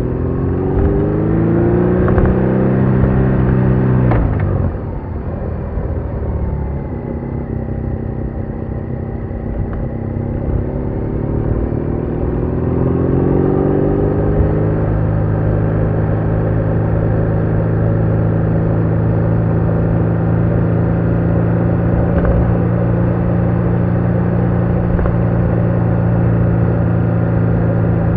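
BMW R1200R's flat-twin boxer engine under way: the engine note climbs under acceleration, drops sharply about four and a half seconds in, climbs again a few seconds later, then holds steady at cruising speed.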